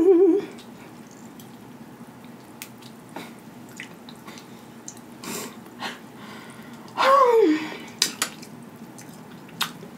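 Close-miked eating of snow crab legs: soft wet mouth clicks and smacks while chewing crab meat, with a few sharp clicks about eight seconds in as the shell is worked. A held sung note with vibrato ends right at the start, and a short sung note slides down in pitch about seven seconds in.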